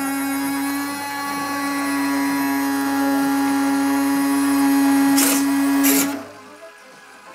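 Electric drive of a large model Panavia Tornado running under test at one steady pitch, with two short rasps shortly before it stops about six seconds in.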